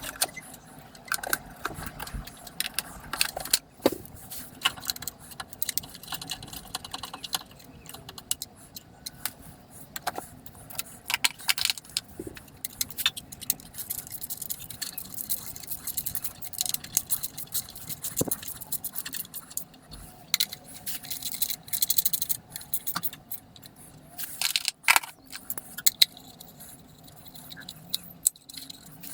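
Metal hand tools and engine parts clinking and rattling, with irregular sharp clicks and clatter, as parts are fitted back onto the engine.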